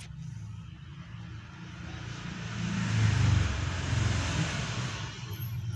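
A road vehicle passing by, its rumble and hiss swelling to a peak about three seconds in and then fading.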